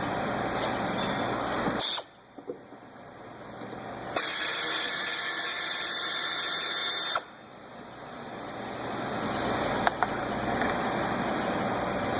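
A steady hiss lasting about three seconds, starting and stopping abruptly in the middle, between stretches of steady background noise.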